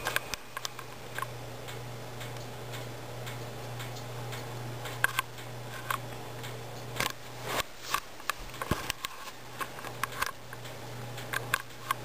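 HP Compaq nx9010 laptop resuming Windows from hibernation: its hard drive clicks irregularly over a steady low hum.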